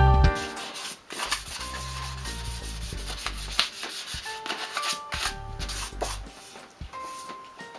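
Abrasive paper rubbed back and forth by hand over the painted face of an alloy wheel, an 800-grit scuff prep before the face is repainted: uneven scratchy strokes. Background music stops just after the start.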